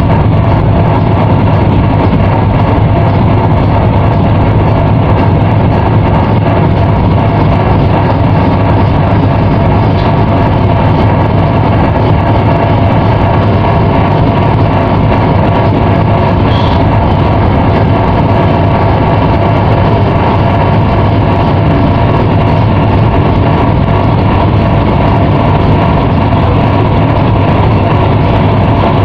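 Ship's engine running steadily, a constant low hum with no change in pace.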